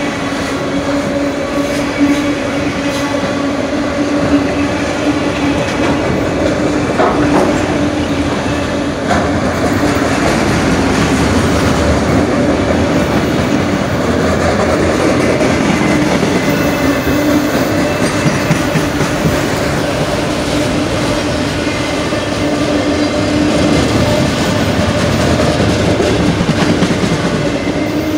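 Freight train's autorack cars rolling past at a grade crossing: a steady rumble and clatter of steel wheels on the rails, with a steady whine held over it.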